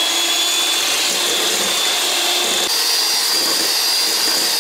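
Electric hand mixer beating eggs in a stainless steel bowl: a steady motor whine over the whir of the beaters, its pitch stepping up abruptly a little past halfway through.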